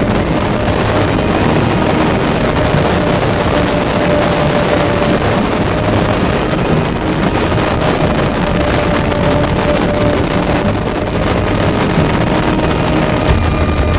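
Outboard motor running steadily at high speed on a boat planing across the water, with a steady whine over the engine's noise.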